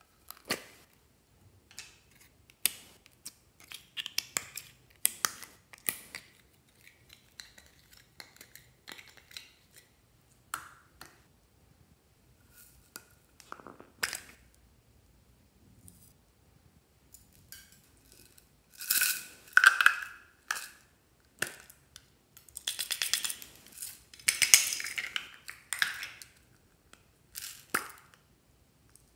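Hands handling small plastic toy containers: a string of sharp clicks and taps as lids are worked open. Two louder spells of rattling, about two-thirds of the way in, come from sprinkles and beads shaken in a plastic scoop.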